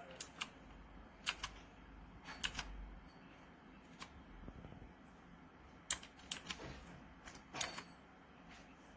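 Keys pressed one at a time on a Redragon K552 mechanical keyboard with red switches: about a dozen sharp clacks at irregular intervals, some in quick pairs and a short flurry between about six and eight seconds in.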